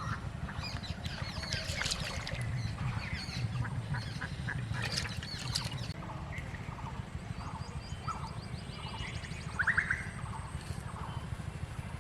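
Birds calling: a busy, overlapping chorus of chirps for the first few seconds, then sparser short calls, over a steady low rumble.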